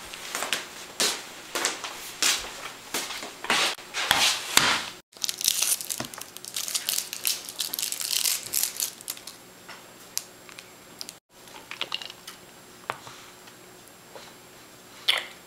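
Crunching and crinkling handling noises: a quick run of crisp crackles and rustles, thinning out to scattered clicks in the second half.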